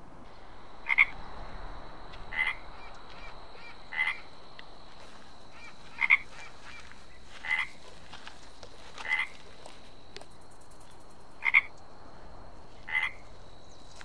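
A frog croaking: eight short calls, about one every one and a half seconds, some in quick pairs.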